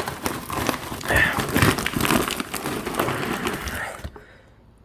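Snack chip bag crinkling and rustling as it is opened and handled, a dense run of crackles that stops abruptly near the end.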